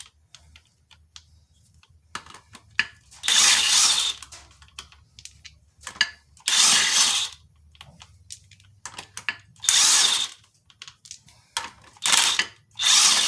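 Impact wrench loosening and spinning out the flywheel bolts on a Jeep 4.0 crankshaft, in several short bursts of about a second each, with small metal clicks of socket and bolts between them.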